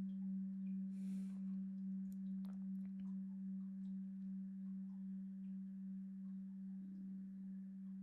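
A deep singing bowl ringing out: one steady low tone with a slow pulsing wobble, gradually fading.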